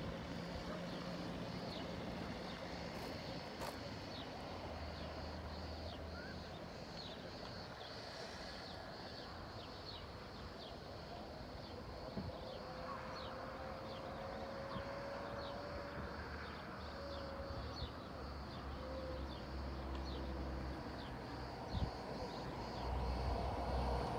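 Outdoor hillside ambience: a steady high buzz with a short chirp repeating about once a second, over a faint low rumble of distant traffic and wind.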